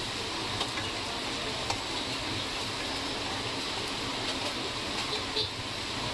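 Sliced onions and vegetables sizzling in an aluminium wok while a wooden spatula stirs them, with a few light knocks of the spatula against the pan.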